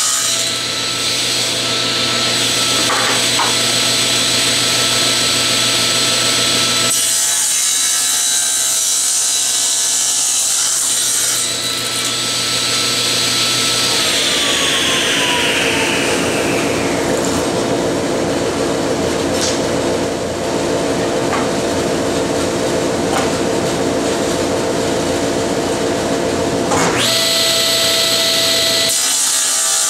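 General 350 cabinet table saw running and ripping a hardwood mallet-head blank to cut it toward an octagon. It is a steady motor and blade whine with the hiss of the cut; a high whine slides down in pitch about halfway through.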